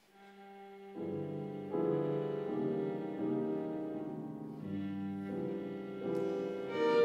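Violin, viola and piano trio playing classical chamber music: a single held bowed note opens, and the piano and the other string come in about a second in.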